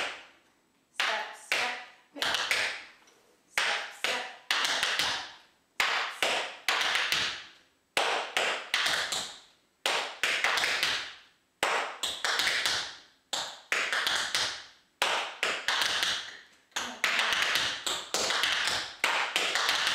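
Tap shoes striking a board in repeated double pickups: short groups of quick, sharp taps about once a second, each group trailing off before the next.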